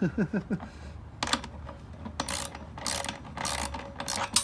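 Hand ratchet wrench clicking in about five short strokes as it backs out a bolt holding the plastic bucket seat to the trike frame.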